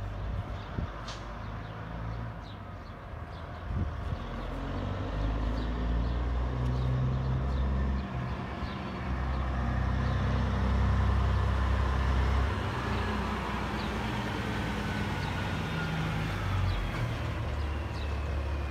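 Diesel engine of a semi tractor pulling a tank trailer as it drives up and passes close by, getting louder toward the middle with two brief dips in the engine note.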